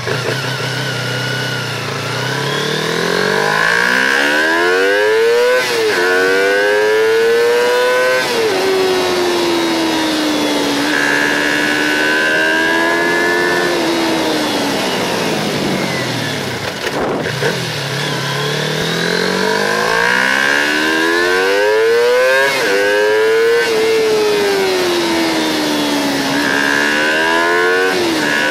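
Kawasaki Ninja 250's parallel-twin engine accelerating through the gears. It climbs in pitch and drops sharply at each upshift, about five and eight seconds in, then falls away while easing off until about halfway, and climbs through the gears again near the end. Heard from a phone taped to the bike's windscreen.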